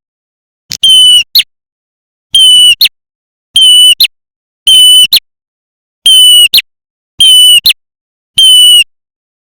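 Looped lure recording of a prenjak merah, a small tailorbird-type warbler, calling: seven short, high, shrill calls, each a held note that ends in a quick upward flick, repeated at an even rhythm about once every second and a bit, with dead silence between.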